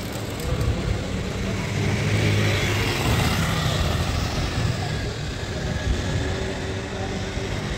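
City street traffic noise, a steady rumble that swells as a vehicle passes about two to three seconds in.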